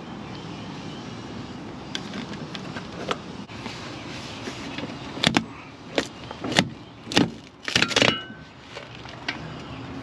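A quick run of metal clanks and knocks with jangling rattles from parts and tools being handled, loudest from about five to eight seconds in, the last few ringing briefly, over steady background noise.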